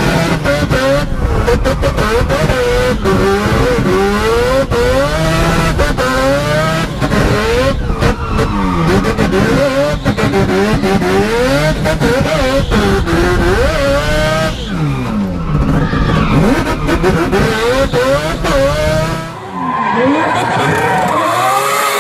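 Mazda rotary engine of a drift car revving hard, its pitch rising and falling steeply over and over as the throttle is worked, heard from inside the cockpit, with tyre skidding under it. About 19 seconds in the sound turns thinner, now heard from the trackside.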